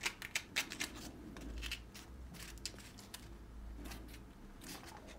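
Small handling noises as fingers press and adjust a model stone-wall strip into place: several quick light clicks in the first second, then a few more scattered ones over a faint low hum.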